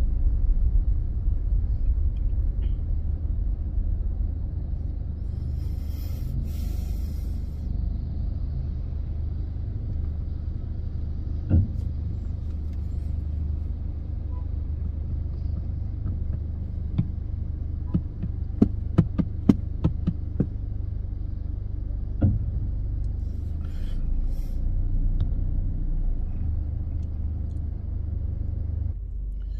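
Car cabin noise while driving: a steady low engine and road rumble, with a few short clicks, most of them bunched together about two-thirds of the way through.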